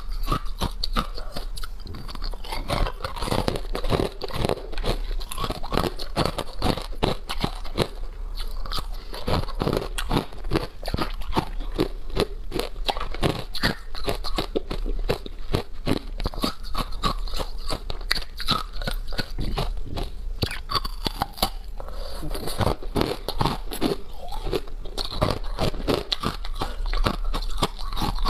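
Hard ice being bitten and chewed close to a clip-on microphone: a dense, continuous run of sharp cracking crunches, several a second.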